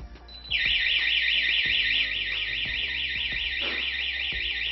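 iHorn wireless alarm system's siren speaker sounding a loud electronic warbling siren, about five warbles a second, set off by the PIR motion sensor detecting a person. It starts about half a second in.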